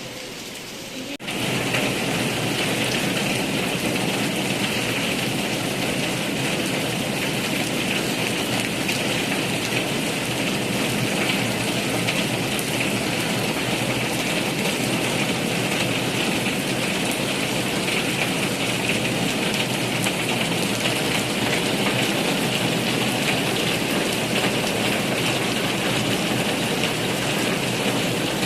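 Steady rain, a dense even patter that comes in abruptly about a second in and holds at one level.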